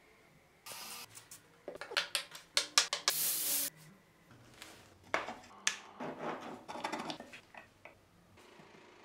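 Sharp clicks and knocks of small wooden model car parts being handled and set down on a table, coming in quick clusters, with a short hiss lasting about half a second around three seconds in.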